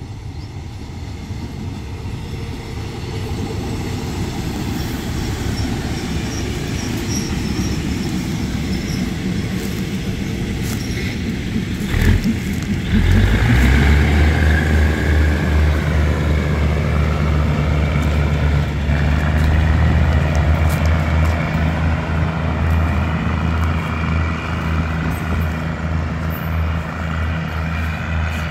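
RHN diesel multiple unit approaching with a rising rumble of wheels on rail, then passing close about halfway through, when its diesel engine's deep, heavy drone comes in loud. The steady engine drone carries on as the railcar set runs away.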